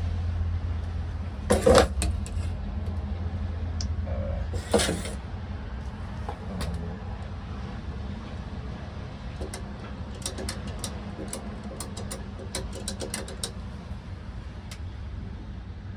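Handling of a payphone: a steady low hum at first, two loud knocks about 2 and 5 seconds in, then a quick run of a dozen or more sharp clicks from about 10 to 13 seconds in, over faint traffic.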